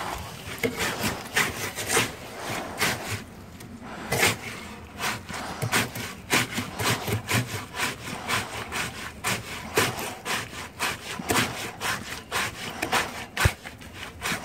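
A wooden stick jabbed over and over into wet concrete around a fence post, scraping through the gravelly mix at about two strokes a second, to work out air bubbles. One sharper knock comes near the end.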